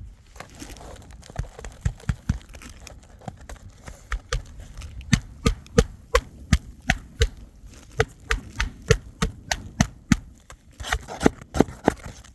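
Hammer blows on an asphalt-shingle roof: a run of sharp knocks with a short metallic ring, about two or three a second, sparse at first and loudest from about five seconds in.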